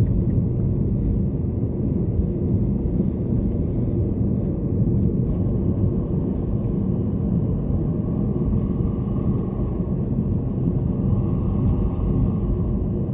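Steady road and engine rumble inside the cabin of a moving Toyota Corolla, with a faint higher whine coming in about halfway through.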